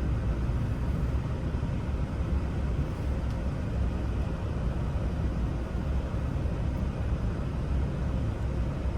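Steady low rumble of continuous background noise, with no distinct clicks or knocks.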